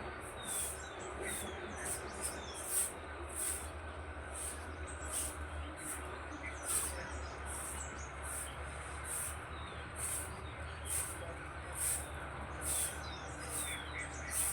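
Birds chirping: a thin, very high chirp repeats a little more than once a second, with short falling chirps from other birds in between, over a low steady rumble.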